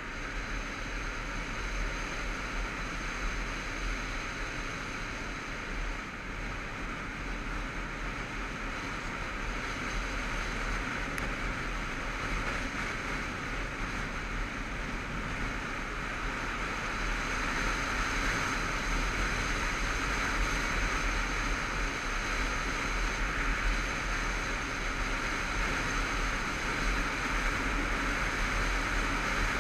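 Wind rushing over a camera on a moving motorcycle, with the bike's running and road noise underneath; the rush grows louder a little over halfway through as speed picks up.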